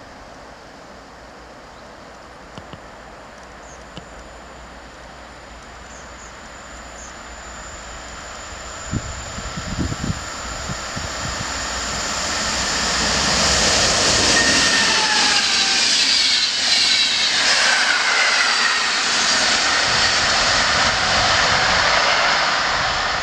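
Electric locomotive-hauled passenger train approaching and passing at speed: a rush of wheels on rail that builds steadily, then stays loud over the last third, with high whining tones sliding down in pitch as it goes by. A few low thumps come just before the noise swells.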